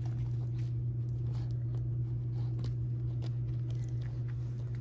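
Steady low hum throughout, with faint scattered clicks and scuffs as bernedoodle puppies chew and mouth plush toys on carpet.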